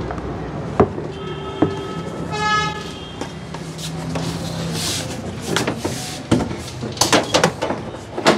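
Plastic clicks and knocks as a car's front bumper and grille are handled and pressed into place, a few in the first two seconds and a rapid cluster in the second half. A vehicle horn toots briefly about two and a half seconds in.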